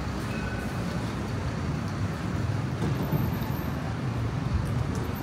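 Steady city street noise: a low rumble of road traffic with no single event standing out.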